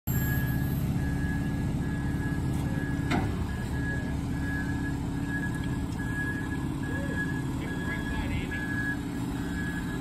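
Front-discharge concrete mixer truck reversing, its diesel engine running steadily under a backup alarm beeping over and over at one pitch. A single sharp knock comes about three seconds in.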